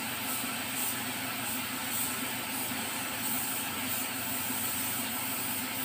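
Gravity-feed spray gun spraying topcoat (clear coat) onto a car bumper, a steady hiss of compressed air with a low hum beneath.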